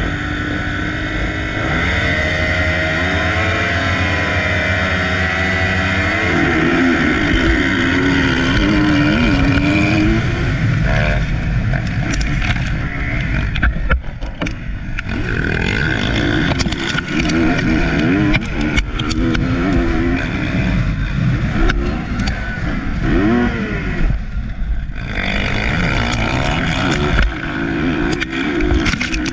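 MX1-class motocross bike engine held revving at the starting gate, then launching about six seconds in and racing hard up and down through the gears, with other bikes running close by.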